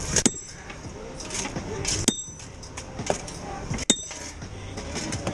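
Spike maul hammering a steel railroad spike into a wooden tie by hand: three sharp metal-on-metal strikes about two seconds apart, each with a brief bright ring.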